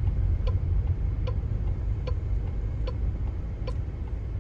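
Car turn-signal indicator ticking evenly, about once every 0.8 seconds, over the steady low rumble of the moving car, heard from inside the cabin.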